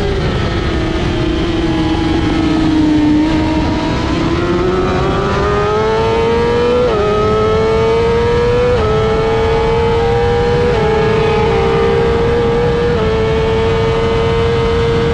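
BMW S1000RR inline-four engine heard from the rider's seat at race pace: the engine note falls for the first few seconds, then climbs hard. It is cut by quick upshifts about seven and nine seconds in, each a sudden drop in pitch, and smaller shifts follow further on.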